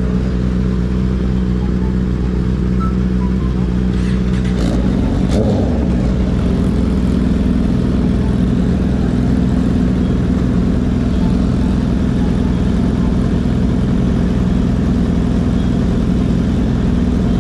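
Sport motorcycle engines idling together at a stop, a steady even note that turns rougher and less even about four and a half seconds in, with a few brief clicks around then.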